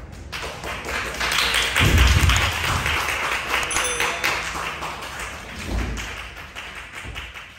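Audience applauding, the clapping swelling over the first two seconds and then slowly dying away. Low thuds come about two seconds in and again near six seconds.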